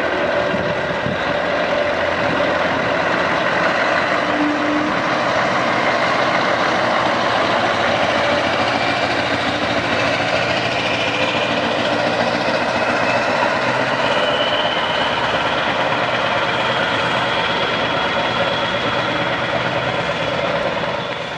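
Scania R500's V8 diesel engine running steadily as the truck drives slowly past at close range.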